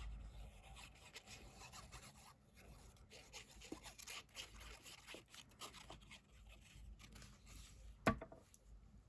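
Faint rustling and light tapping of paper and card being handled and pressed down onto a card base, with one sharp tap about eight seconds in.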